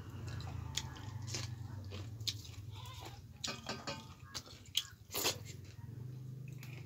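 Close-miked mouth sounds of a person eating chicken gizzard curry with finger-millet dhido: chewing, crunching and wet smacks in irregular clicks, over a steady low hum.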